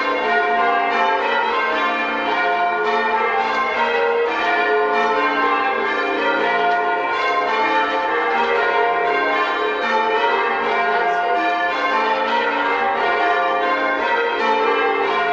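Change ringing on a ring of six church bells with a 14 cwt tenor, the bells struck one after another in a steady rhythm, their tones overlapping.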